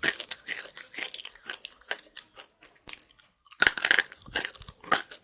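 Slate pencil being bitten and chewed, a run of irregular crunchy snaps. A brief pause comes about three seconds in, followed by a loud cluster of crunches.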